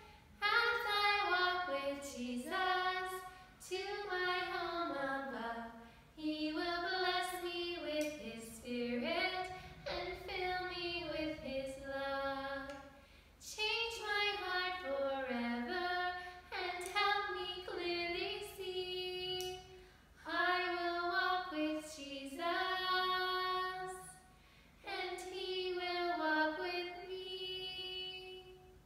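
A woman and a young boy singing a children's song together without accompaniment, in short phrases with brief pauses between them.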